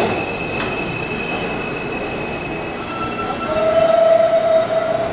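R160A-1 subway train pulling into the station and slowing, its wheels squealing with high steady tones; a louder, lower squeal joins in about three and a half seconds in.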